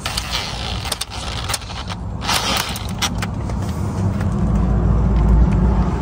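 Cordless DeWalt 20V driver running screws into a steering wheel's hub, a short burst about two seconds in among small clicks of parts and the tool. A low, steady rumble grows louder through the second half.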